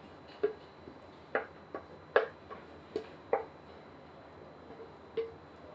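Irregular sharp taps and clicks of a utensil knocking against a frying pan and bowl while food is scooped out, about seven in all.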